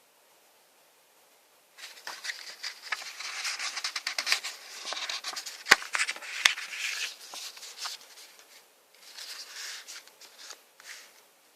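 Packaging being handled during an unboxing: crinkly rustling in two stretches, with two sharp clicks about halfway through.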